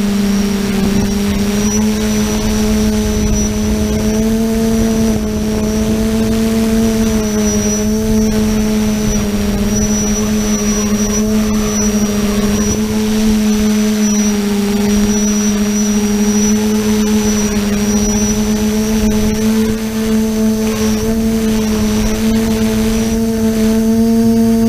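TBS Discovery quadcopter's brushless motors and propellers whining steadily in flight, with wind rumbling on the onboard microphone. The pitch wavers slightly and rises a little near the end.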